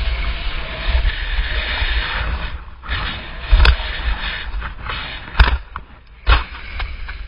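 Wind buffeting a GoPro camera's microphone during a downhill ski run, a low rumble over the hiss of skis scraping snow. Three sharp knocks come in the second half.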